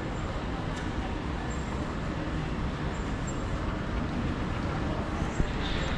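Steady ambient noise of a busy airport terminal hall: a low rumble of air handling with the indistinct bustle of travellers. There is a small knock about five seconds in.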